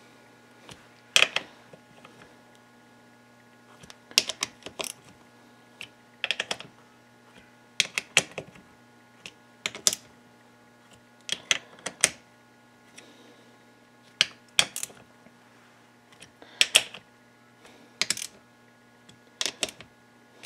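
Hand torque wrench ratcheting and clicking in short groups every second or two as small clutch cover screws going into aluminium threads are tightened to factory spec in a star pattern. A faint steady hum runs underneath.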